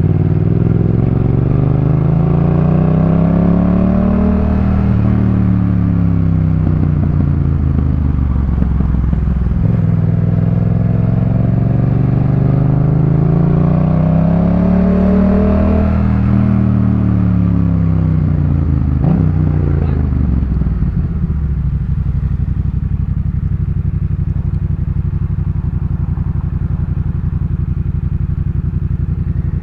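Yamaha MT-07's 689 cc parallel-twin engine through a Jeskap K4 full aftermarket exhaust, its pitch rising and falling twice as the bike is ridden. About two-thirds of the way through it settles into a steady idle.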